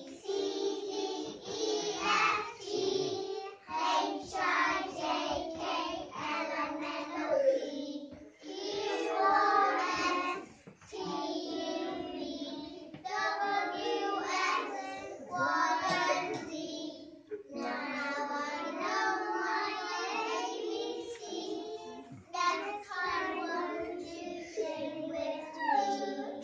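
A group of young children singing a song together, line by line with short breaths between phrases.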